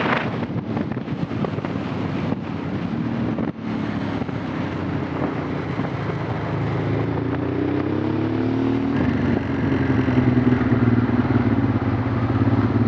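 Honda Transalp's V-twin engine running under way. Its pitch rises about seven to nine seconds in, then holds steady.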